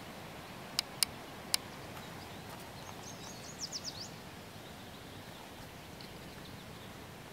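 Rifle scope adjustment turret clicking three times in quick succession, as the crosshairs are moved onto the laser dot. About three seconds in, a bird gives a quick run of high, falling chirps over a steady outdoor background.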